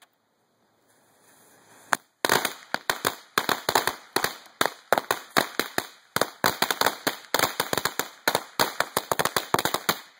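A pack of Cutting Edge lady finger firecrackers going off: one sharp crack about two seconds in, then a rapid string of sharp pops, several a second, for about eight seconds, stopping abruptly.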